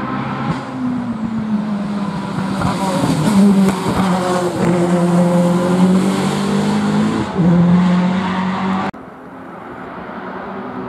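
Race car accelerating hard past on full throttle, its engine running at high revs with three brief dips as it shifts up. The sound breaks off suddenly near the end, and a fainter engine note from further away follows.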